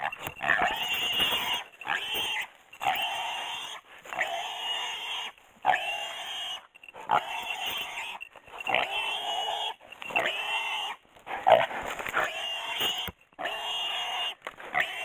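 Wild boar squealing over and over while a hunting dog bites and holds it. Each squeal lasts about a second, with short breaks between.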